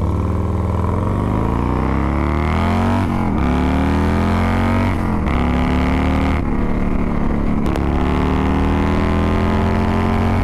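2001 Harley-Davidson Dyna FXDX T-Sport's Twin Cam 88 V-twin, fitted with a Thunderheader 2-into-1 exhaust, accelerating up through the gears: the engine note climbs in each gear and drops at each upshift, about every two to three seconds.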